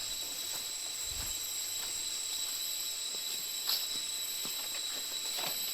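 Steady, high-pitched drone of rainforest insects such as cicadas or crickets, several level tones over a hiss, with a few faint ticks.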